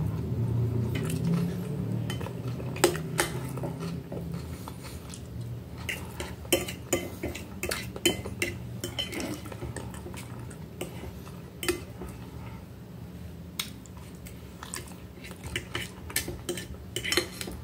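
Metal knife and fork cutting a piece of meat on a glass plate, with many sharp clicks and scrapes of metal on glass at irregular intervals.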